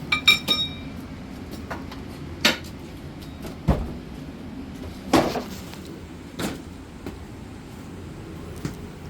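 Scattered knocks and clatter of hand work on the installation, starting with a metallic clink that rings briefly, then single knocks every second or so, over a steady low hum.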